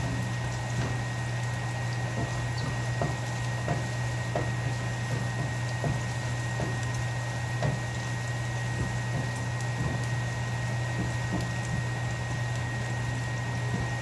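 Pot of ground beef and vegetable soup bubbling on the stove, scattered small pops over a steady low hum and a faint high whine.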